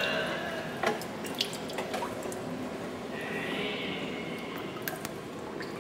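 Water dripping and splashing inside a sea cave: irregular drips falling from a kayak paddle blade and light splashes as it is worked through the water.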